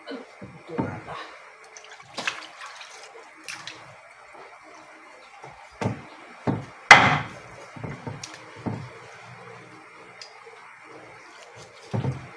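Meat cleaver chopping on a wooden cutting board: a string of irregular knocks, the loudest about seven seconds in, over a steady background hiss.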